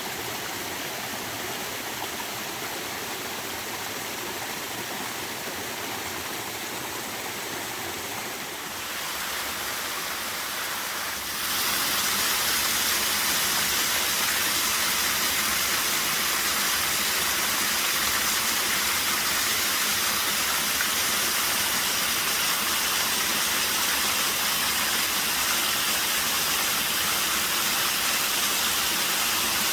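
Small waterfall with a fairly light flow, a steady rush of falling water; about a third of the way in it turns abruptly louder and brighter.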